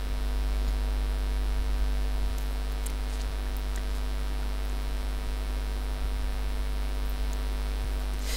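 Steady electrical mains hum, a low buzz with many evenly spaced overtones, carried on the recording's microphone line.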